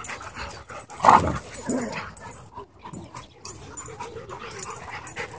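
Dogs playing rough, with one loud dog vocalization about a second in and a shorter one soon after, amid scuffling.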